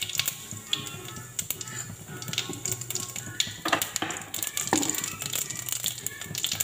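Cumin seeds crackling and spitting in hot oil in a kadai as a jeera tempering: a quick, uneven run of sharp little pops, the sign that the oil is hot enough for the seeds to cook.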